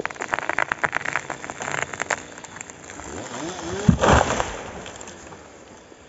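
A felled pine cracking and snapping as it tips over, then crashing to the ground with a heavy thud about four seconds in, the loudest moment.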